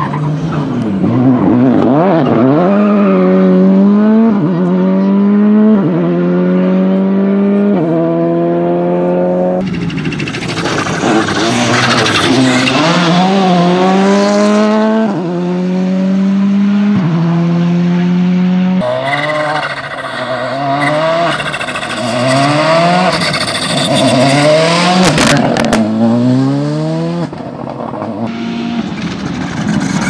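VW Polo GTI R5 rally cars' turbocharged 1.6-litre four-cylinder engines accelerating hard. The pitch climbs and drops back at each quick upshift, across several separate passes.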